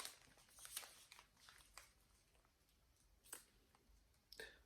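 Near silence, broken by a few faint short clicks and rustles of small packaged toiletries being handled.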